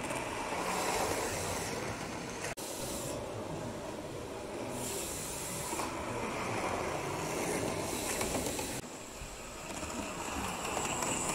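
Model steam locomotive running along layout track, a steady small-motor and wheel rumble with patches of hiss coming and going every second or two.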